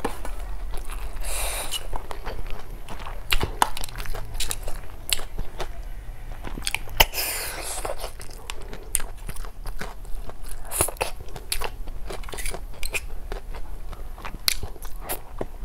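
Close-miked eating of snail curry with rice: wet chewing and crunching, with many sharp clicks and smacks. There are two longer hissing sounds, about a second and a half in and again around seven seconds.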